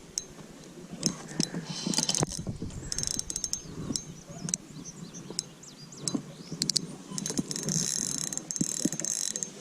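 Fishing reel cranking and clicking in irregular runs while a big catfish is played on the line.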